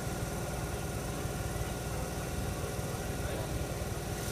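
Tangara double-deck electric train standing at the platform, its onboard equipment giving a steady hum of several tones over a low rumble.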